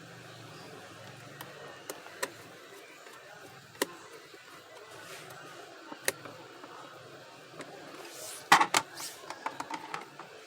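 Handling noise from taking apart a drip coffee maker: single sharp clicks a second or two apart, then a quick run of louder clicks and rattles near the end.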